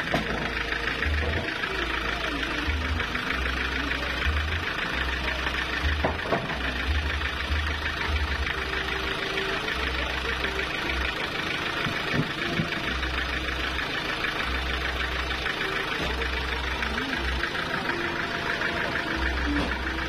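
Sawmill's engine running steadily, with a couple of brief knocks near the middle as the log is handled.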